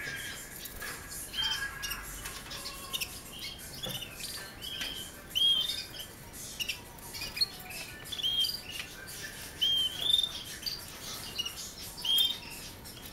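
Canaries chirping: short, high, arched call notes repeated irregularly through, a few of them louder than the rest.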